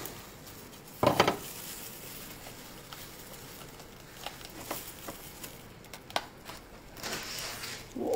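Knife prying into a Black Thorn durian and gloved hands tearing the spiky husk apart: faint scraping, creaking and small clicks, with one louder short sound about a second in.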